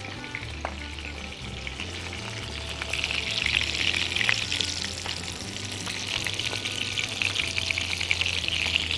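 Salmon fillets frying in butter and olive oil in a nonstick pan: a steady sizzle that grows a little louder about three seconds in.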